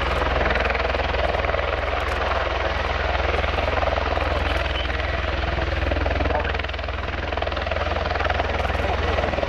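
Bell-Boeing CV-22B Osprey tiltrotor taxiing with its nacelles upright in helicopter mode: both proprotors and Rolls-Royce AE 1107C turboshaft engines run steadily, a low pulsing rotor beat under a broad engine rush.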